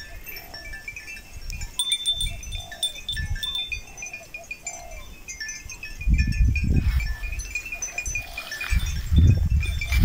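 Bells on grazing cattle clinking lightly and irregularly, with short ringing tones throughout. Low rumbles come about six seconds and again about nine seconds in, the loudest sounds here.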